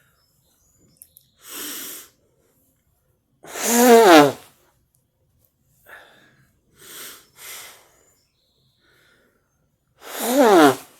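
A woman sneezing twice, each a loud sneeze with a voiced 'achoo' that falls in pitch, about four seconds in and again near the end. Quieter breaths and sniffs come in between.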